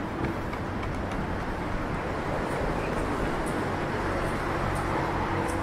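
Steady road traffic noise from cars on a coast road, an even rushing hum.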